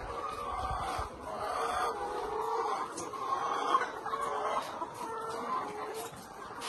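Many animal calls overlapping without a break, each wavering in pitch.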